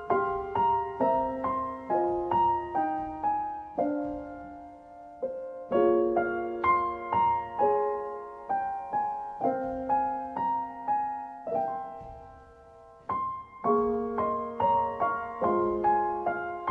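Background music: a gentle solo piano piece of separate notes and soft chords that ring and die away. The playing fades out briefly about two-thirds of the way through, then resumes.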